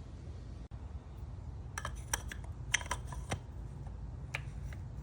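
A handful of sharp clicks and small rattles, in two quick clusters about two and three seconds in and a single click or two near the end, over a steady low hum.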